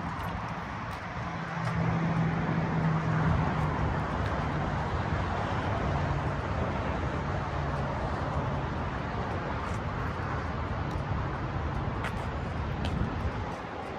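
Dodge Charger Scat Pack's 392 HEMI V8 running with a steady low drone. It swells briefly about two seconds in, then settles.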